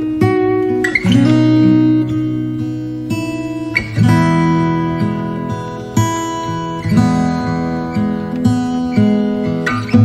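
Background music: strummed acoustic guitar chords, a fresh strum and chord change every second or two.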